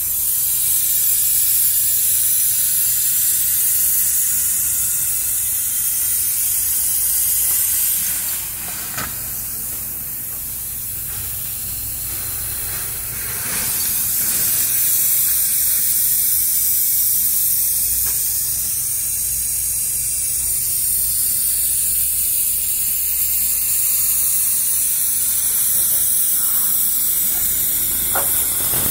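A steady, loud, high hiss, quieter for a few seconds about a third of the way in, with a few faint knocks.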